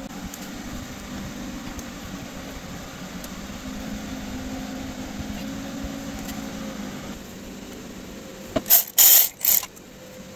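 A ratchet wrench works in three quick bursts near the end, running down the outboard's powerhead mounting bolts. Before that there is only a steady low hum.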